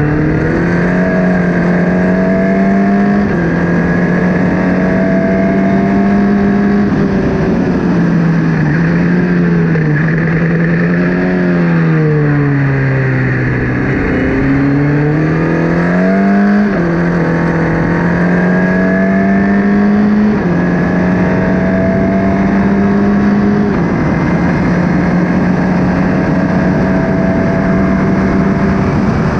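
Formula Ford race car engine at racing revs, pitch climbing through each gear and dropping sharply at every upshift, several times. About midway the revs sink steadily as the car slows for a corner, then rise again as it accelerates away.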